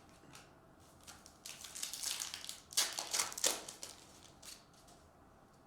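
Trading cards being handled and slid against each other: about two and a half seconds of rustling and scraping, with a couple of sharper snaps near the middle.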